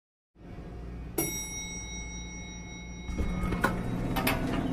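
Elevator chime dings once about a second in and rings out, over a steady low hum. Then the elevator doors slide, with a few sharp clunks near the end.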